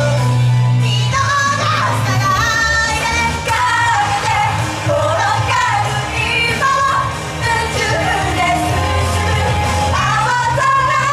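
Japanese idol pop song performed by a female idol group, with high female voices singing over an upbeat backing track with a strong, sustained bass line.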